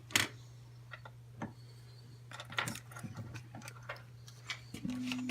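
Irregular small metal clicks and taps of hose clamps and fuel hose being handled and fitted onto a fuel pump fitting, with a sharp click about a quarter second in, over a steady low hum.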